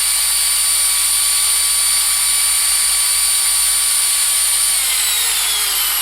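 Wood router's motor running at full speed with a steady high whine, mounted on a homebuilt CNC machine as it finishes carving. About five seconds in it is switched off at the end of the job, and the whine falls steadily as the motor spins down.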